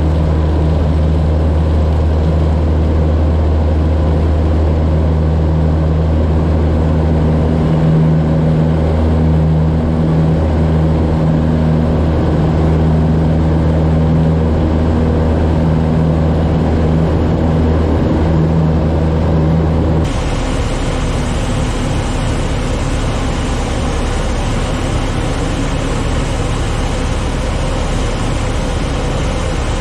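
A Citabria light airplane's propeller engine running steadily with a low, even hum while the plane rolls along a grass airstrip. About two-thirds of the way through, the sound changes abruptly to a hissing rush of wind over the airframe with the engine beneath it, as the plane flies in the air.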